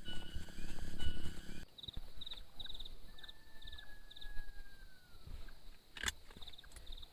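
Forest ambience: insects chirping in short, evenly repeated high trills, with a long whistle-like call that slowly falls in pitch and a single sharp click near the end. The opening couple of seconds are a louder stretch with a low rumble and repeated tones that cuts off abruptly.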